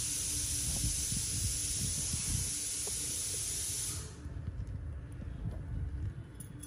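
A steady hiss that cuts off abruptly about four seconds in, over a low, uneven rumble.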